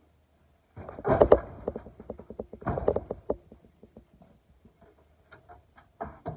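Wooden boards and hardware clattering as a wooden chicken coop is taken apart by hand: two bursts of quick rattling knocks about one and three seconds in, then scattered ticks and a single knock near the end.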